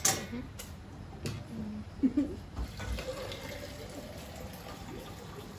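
Brewed Thai tea being poured from one vessel into another, a faint steady trickle after a sharp clink of utensils at the start.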